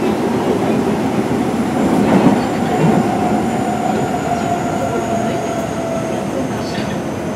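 Osaka Metro 23 series subway train with a Mitsubishi GTO-VVVF inverter, running with a steady rumble of wheels on rail. A faint motor whine falls slowly in pitch as the train slows for a station stop.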